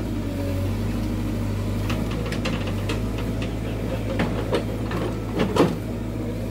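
Excavator's diesel engine running steadily, with scattered sharp knocks and clatters; the loudest comes about five and a half seconds in.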